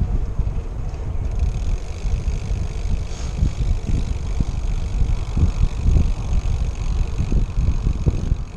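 Wind buffeting the microphone of a camera on a moving road bike: a loud, gusty low rumble that rises and falls.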